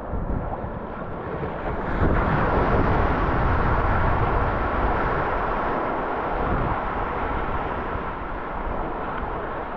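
Wind noise on the microphone mixed with rushing water, growing louder about two seconds in and holding there.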